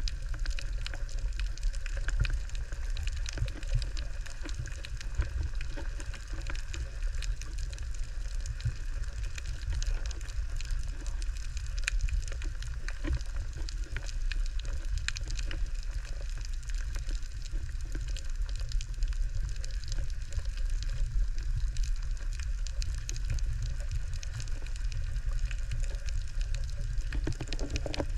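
Underwater sound picked up by a GoPro inside its waterproof housing: a steady, muffled low rumble of water moving around the camera, with a constant fine crackling of small clicks.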